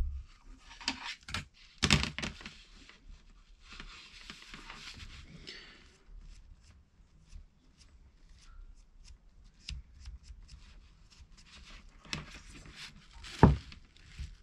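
Handling noise from working a plastic bulb socket and its wiring by hand: scattered clicks and taps, with a stretch of paper-towel rustling, and one sharp click near the end.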